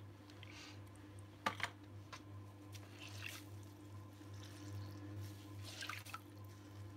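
Wet hands pressing and smoothing clay on a spinning potter's wheel: faint wet squelches and drips over a steady low hum, with a sharp click about one and a half seconds in.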